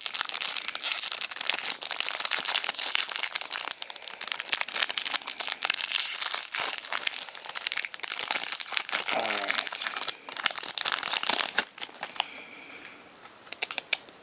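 Plastic or foil trading-card pack wrapper crinkling and crackling as it is handled and torn open, with the rustle of cards; it drops away to quiet handling near the end.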